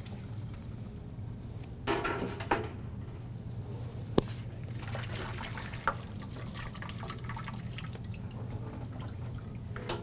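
Water dripping and trickling back into the pot from freshly boiled spinach pappardelle set over it to drain, with a few light knocks and a sharp click, over a steady low hum.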